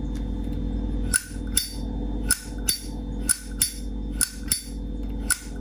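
Vintage 1981 Zippo lighter's hinged brass lid being flicked open and snapped shut over and over, each sharp metallic clink coming in pairs about once a second. A steady low hum runs underneath.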